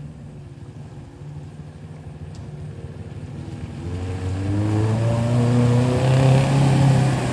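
Off-road vehicle's engine running at low revs, then revving harder and getting louder from about four seconds in, its pitch rising and dipping under load.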